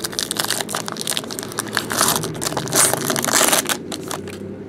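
Foil wrapper of a trading-card pack being torn open and crumpled in the hands: a dense crackle of crinkling foil that dies away about four seconds in.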